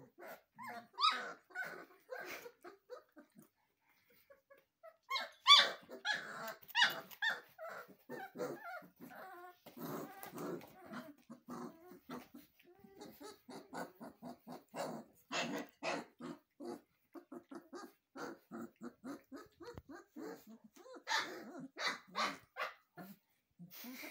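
Three-week-old puppies play-fighting, giving many short high yips, squeaky barks and small growls in quick irregular runs, loudest about five seconds in.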